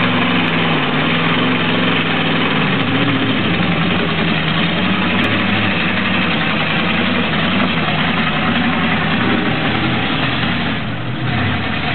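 Lifted pickup truck's engine running steadily under load as it churns through a deep mud hole on large mud tires, with water splashing around the wheels. The engine eases off briefly about 11 seconds in.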